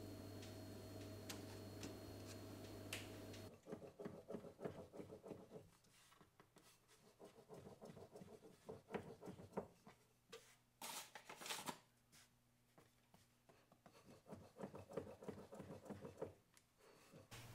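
Faint steady low hum for the first few seconds, then faint scattered scratching, rustling and light clicks of handling, a few of them briefly louder.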